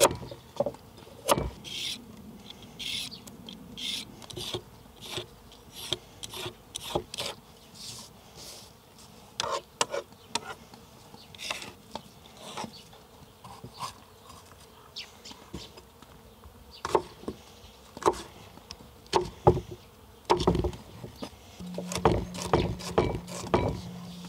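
Knife cutting carrot and bell pepper into strips on a cutting board: a long run of irregular chopping strokes. An insect buzzes steadily over the last few seconds.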